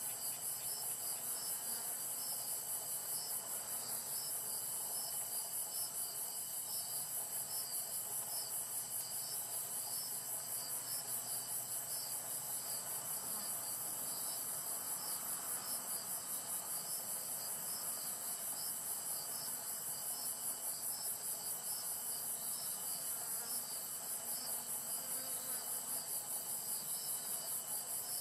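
Insects singing: a loud, high-pitched, rapidly pulsing trill, with a second insect chirping a little lower and a faint steady whine beneath.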